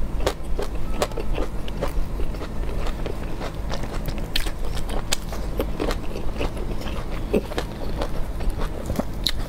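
Close-miked eating sounds: chewing with many short, irregular wet mouth clicks and smacks, over a steady low background hum.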